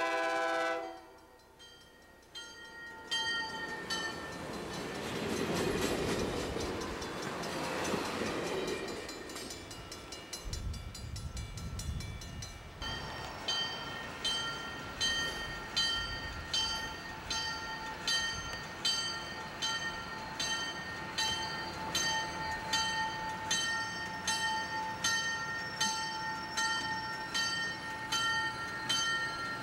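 Budd Rail Diesel Car's horn chord ends about a second in, then the car passes with a rising rumble and clatter of wheels on the rails. After a cut about midway, a bell rings steadily, about one and a half strikes a second, as the car comes slowly up the track.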